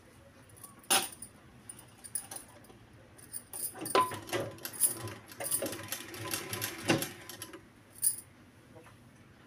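Domestic sewing machine stitching pleats into thin fabric in short runs, with several sharp clicks and the rustle of the fabric being folded under the presser foot; the busiest stretch is in the middle.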